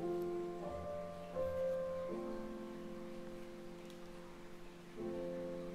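Soft instrumental background music: slow, held chords that change to new notes a few times, with a long held chord in the middle and a new one near the end.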